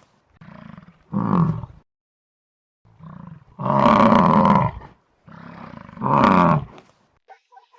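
A large animal calling loudly three times, each loud call led in by a quieter one, in an alternating quiet–loud rhythm.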